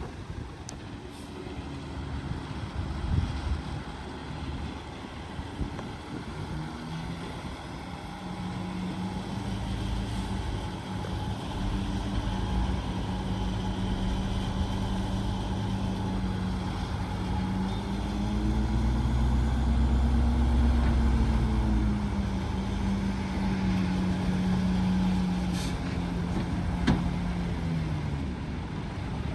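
Diesel engine of heavy earthmoving machinery running steadily, then rising in pitch and getting louder in the middle as it works harder. It settles back, and its pitch drops away near the end.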